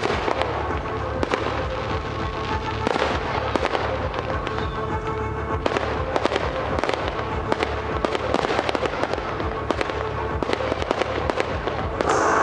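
Fireworks display: many sharp bangs and crackles in quick, irregular succession, with music playing underneath that swells near the end.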